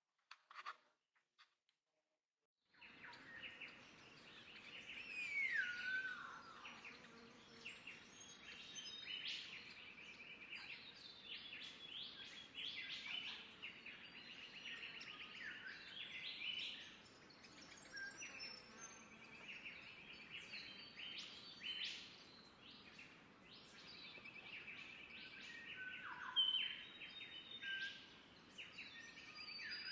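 Forest birds chirping and calling over a faint ambient hiss, many short overlapping calls, with a falling whistle about five seconds in and a louder sharp call near the end. The first few seconds are near silent apart from a few faint clicks.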